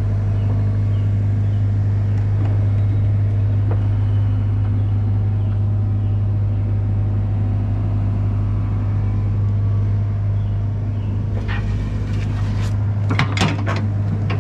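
John Deere 85G excavator's diesel engine running steadily with a deep, even hum, heard up close. A few sharp knocks come near the end.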